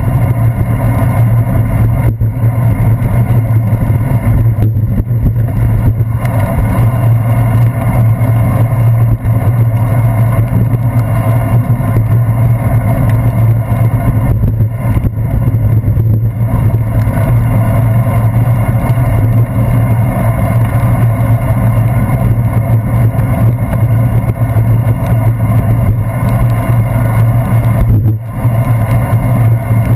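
Steady, loud, low rumble of wind and wet-road noise picked up by a handlebar-mounted action camera on a moving bicycle, with a brief dip near the end.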